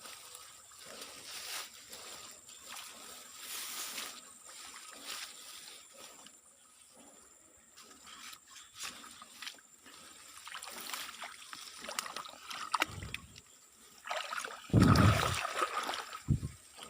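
Handling and rustling of fishing gear at the water's edge while set-lines are baited and placed, with light water trickling and sloshing. A louder thump comes about thirteen seconds in and a heavier, loudest one about fifteen seconds in.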